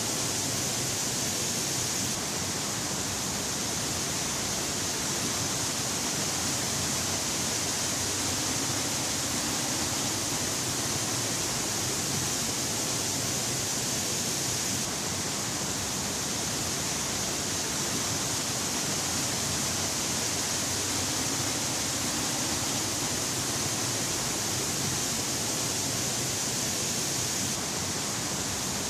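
A tall horsetail waterfall, about 98 m high, falling onto rocks and into a plunge pool: a steady, hissing rush of falling water.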